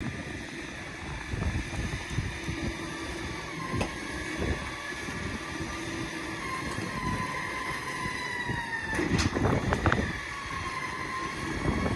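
A motor running steadily: a low rumble under a thin, slowly drifting whine, with a few sharp knocks about nine to ten seconds in.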